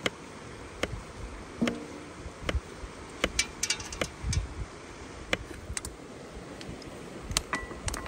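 Kitchen knife slicing button mushrooms on a wooden cutting board: irregular sharp taps as the blade meets the board, with a quick run of small clicks a little past three seconds in.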